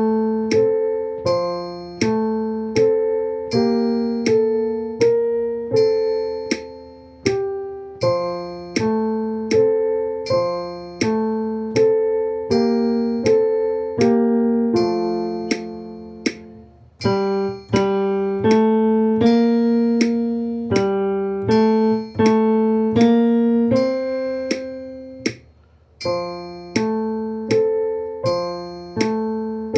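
A slow piano melody in three-four time played along with a metronome at 80 beats per minute. The metronome clicks each quarter-note beat and rings a higher ding on the first beat of every three-beat measure.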